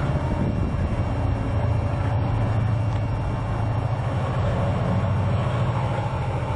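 A steady low rumble, with faint thin higher tones over it.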